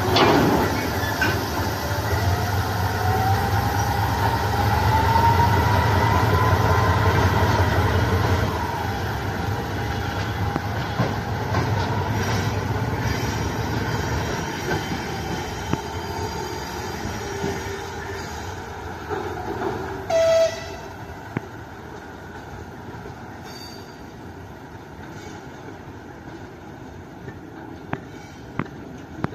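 TGM8KM diesel-hydraulic shunting locomotive working under load as it pulls away, with a strong low engine hum and a rising whine over the first several seconds, then fading as it moves off. A brief horn toot comes about twenty seconds in.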